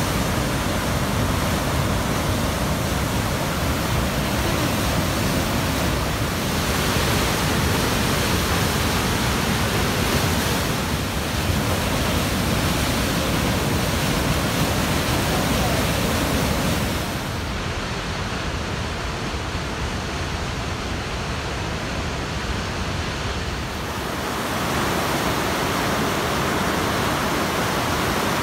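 A steady, even rushing noise that turns duller for several seconds after the middle, then returns to its full hiss near the end.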